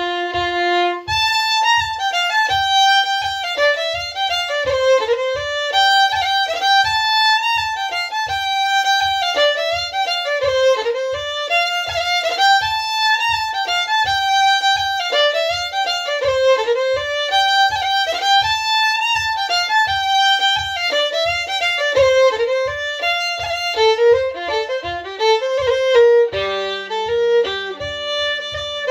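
Solo fiddle playing an Irish barndance: a lively bowed melody, with a low thump marking the beat about twice a second.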